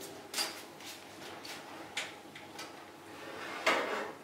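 Soft household handling sounds: a run of light knocks about twice a second, then one louder clatter near the end.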